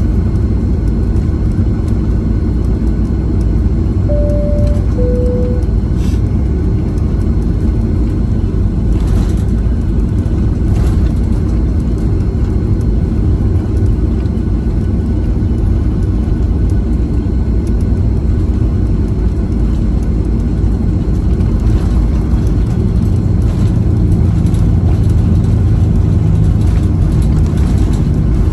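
Steady jet-engine noise inside the cabin of a Ryanair Boeing 737 taxiing towards the runway. About four seconds in, a two-note high-low chime sounds, and a low engine hum grows slightly louder near the end.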